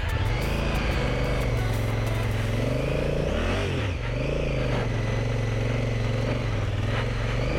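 Big twin-cylinder adventure motorcycle engine pulling along a gravel track, heard from the rider's seat. The revs rise and fall, with a quick dip and climb partway through as the rider shifts up from second to third.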